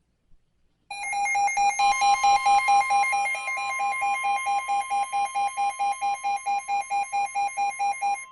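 Weather radio alert alarm: a rapid pulsing beep, about four pulses a second, starting about a second in, with the steady 1050 Hz NOAA Weather Radio warning alarm tone joining shortly after. It signals an incoming weather warning.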